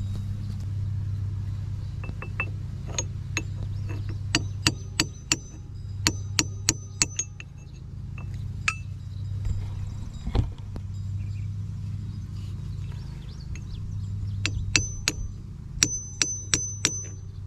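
Socket wrench working a spark plug loose from a small two-stroke engine's cylinder head: repeated sharp metallic clicks in short runs, some with a brief high ring, and one heavier knock about halfway through.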